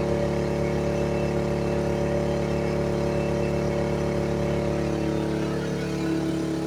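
EcoFlow 3000 dual-fuel portable generator running steadily on propane with a constant engine hum, under load while charging a power station. The pitch shifts slightly near the end.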